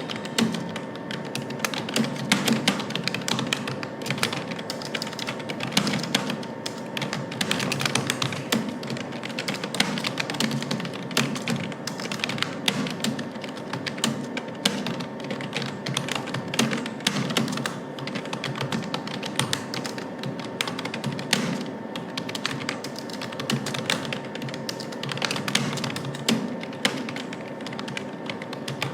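Two people typing fast at once on keyboards in a typing-speed test: a dense, continuous, irregular clatter of overlapping key presses.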